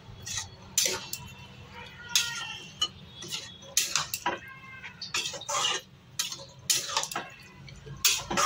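Spatula scraping and clinking against an aluminium kadai as a thick jackfruit curry is stirred, in irregular strokes, over a steady low hum.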